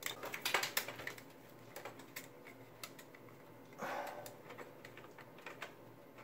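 Scattered small plastic clicks and taps as an 8-pin CPU power connector and its cable are handled and pushed into the motherboard socket, with a short rustle about four seconds in.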